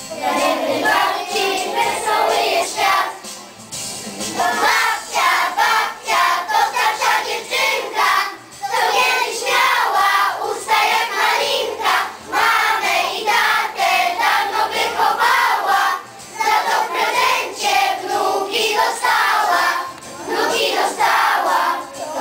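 A children's choir singing together, in phrases with short pauses between them.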